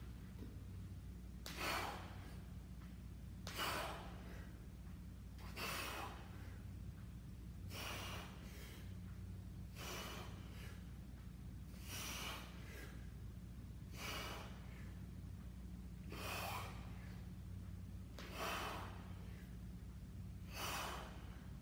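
A man breathing out hard through the mouth in sharp bursts of effort, one with each rep of a kettlebell sumo squat. There are about ten breaths, evenly paced roughly two seconds apart.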